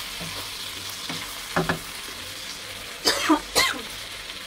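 Chicken pieces sizzling as they fry in a non-stick pan, stirred with a wooden spatula. A few short, sharp knocks and scrapes of the spatula against the pan, the loudest two about three seconds in.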